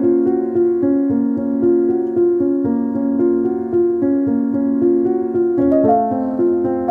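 Instrumental background music with a piano melody; the tune moves to higher notes about six seconds in.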